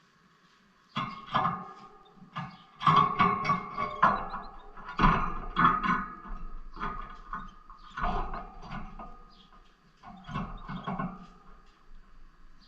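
Pet lovebirds clattering about in a birdcage: irregular clusters of knocks and rattles, with faint high chirps between them.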